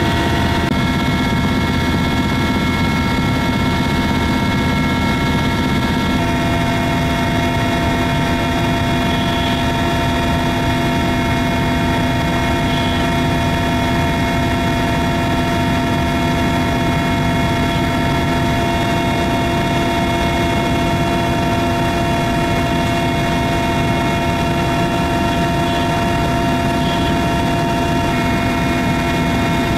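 Mil Mi-171 helicopter running steadily: several constant high whining tones over a dense low rumble.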